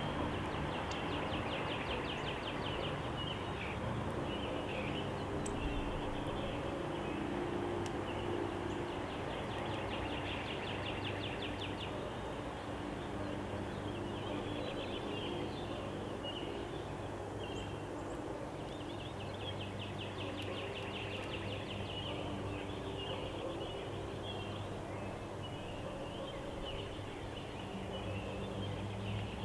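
Outdoor background ambience with a steady low hum, and a distant songbird trilling three times, each trill a couple of seconds of rapid repeated high notes.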